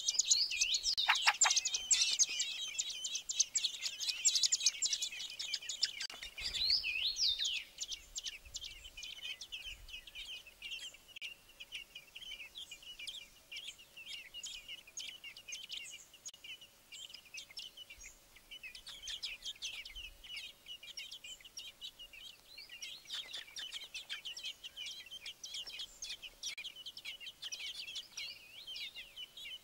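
Fieldfare nestlings begging for food: a dense chorus of rapid, high-pitched cheeps, loudest for the first six or seven seconds, then softer and continuous, swelling again now and then.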